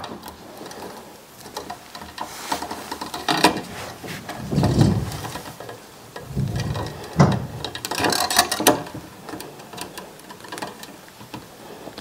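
Needle-nose pliers clicking and scraping as they bend stripped copper wire ends into hook loops for screw terminals, the wires and tool knocking against a metal electrical box, with a dull thump about five seconds in.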